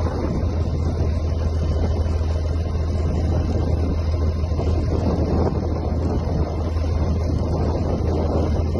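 Strong wind from a dust devil buffeting the microphone: a loud, steady low rumble with rushing noise over it.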